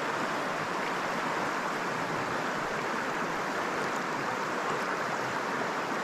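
Shallow stream water running steadily over rocks, an even, unbroken rush.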